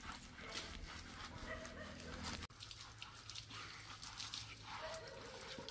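A dog being bathed: gloved hands scrub its wet coat, then water poured from a jug splashes over it onto the wet concrete floor. There is a sudden break about two and a half seconds in.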